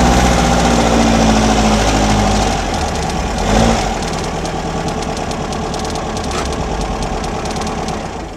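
Air-cooled Volkswagen Baja Bug engine running and revving under load as the car drives off-road into dry brush. The engine pitch rises about a second in, then turns rougher and noisier as the car pushes through the brush.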